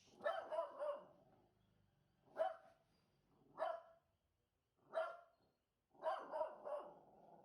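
A 13-year-old dog barking in short bursts: a quick run of three barks, then three single barks a second or so apart, then another run of three. This is alert barking at someone outside the house, as he does at delivery people and the postman.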